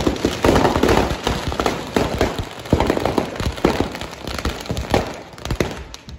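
Firecrackers packed inside a burning Ravan effigy going off in a rapid, irregular string of bangs and cracks, thinning out near the end.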